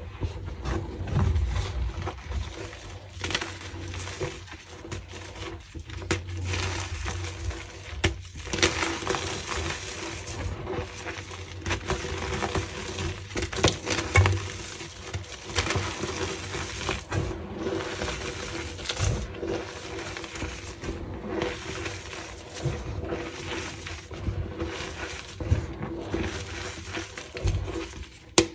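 Hands squeezing and crumbling powdery gym chalk, a steady run of soft dry crunches and powdery rustling with a few sharper crackles as clumps break apart.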